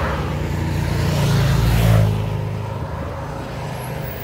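A motor vehicle passing on the road: engine hum and road noise swell to their loudest about two seconds in, then fade, leaving a steady low engine drone.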